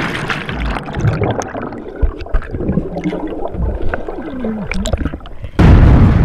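Water gurgling and bubbling around a camera held underwater in a swimming pool, with scattered clicks and knocks. About five and a half seconds in, a sudden loud, deep blast cuts in and keeps going.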